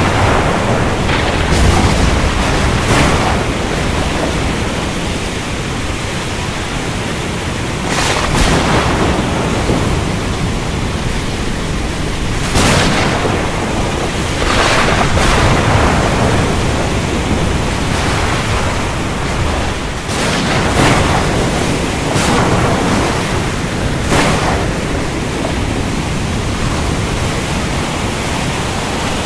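Thunderstorm at sea: a steady roar of rain, wind and water noise, broken every few seconds by short, loud crashes.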